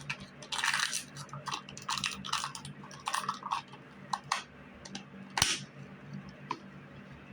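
Small objects being handled: irregular rustling, clicks and taps, with one sharper click about five and a half seconds in, over a faint steady hum.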